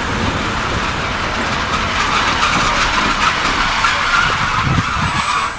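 Passenger train coaches rolling past with a steady rush of wheel noise. A high squeal joins about two seconds in and holds.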